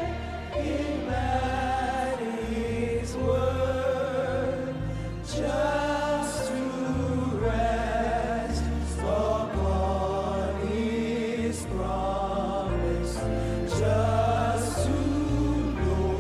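Live gospel worship music: voices singing long held notes over a band with deep bass notes and occasional cymbal swells.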